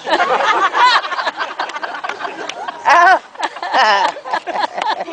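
Crowd laughing and chattering, with loud outbursts of laughter about a second in and again near the middle.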